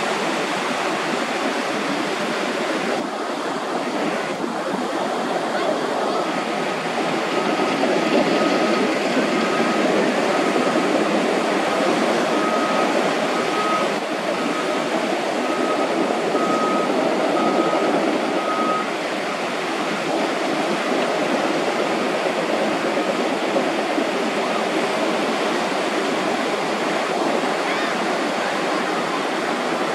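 Steady rushing noise like running water, with a run of short, evenly pitched high beeps from about six seconds in to about nineteen seconds in.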